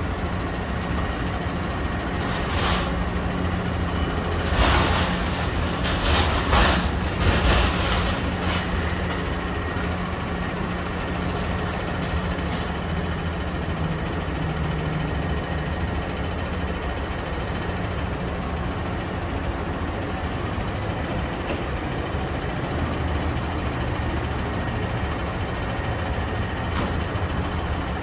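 Engine of a brand-new Peterbilt front-loader garbage truck running steadily as it pulls up and idles. Several short, sharp hisses from its air brakes come in the first eight seconds.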